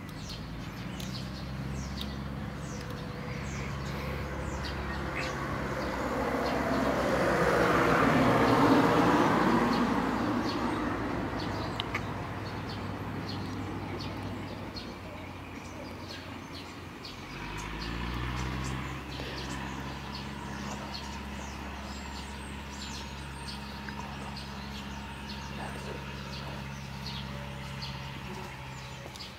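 Outdoor ambience of small birds chirping over a steady low engine hum. A passing vehicle's noise swells and fades about eight to ten seconds in.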